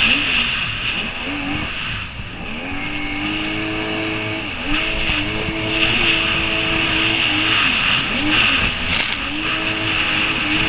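Jet ski engine running under way. Its pitch dips and climbs again several times as the throttle is eased and reopened, over a steady rush of wind and water.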